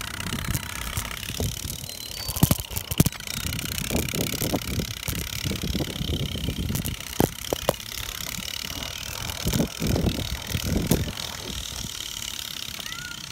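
Bicycle riding over grass and dirt: tyre rumble and wind buffeting the microphone, with several sharp knocks and rattles, a cluster about two to three seconds in and more later.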